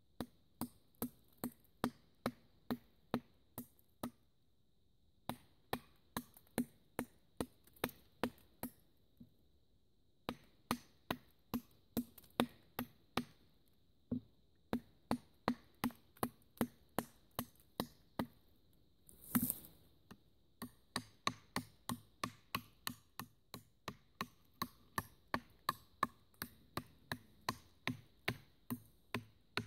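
A small fixed-blade bushcraft knife chopping into a green sapling stem: sharp wooden chops about two a second, in runs broken by short pauses. About 19 seconds in there is one louder, longer noise.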